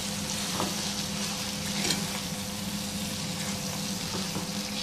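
Raw chicken pieces sizzling in hot masala in a nonstick pot as a spatula stirs and turns them, with a few soft spatula scrapes. A steady low hum runs underneath.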